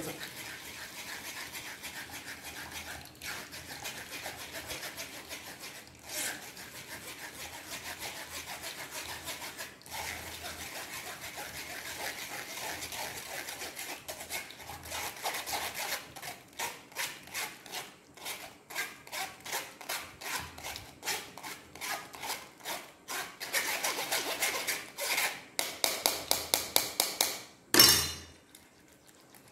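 Metal spoon scraping and rubbing thick bael (wood apple) pulp through a stainless-steel mesh strainer, pressing the fibres out. It starts as a continuous scrape, then turns into short repeated strokes in the second half, with one loud knock near the end.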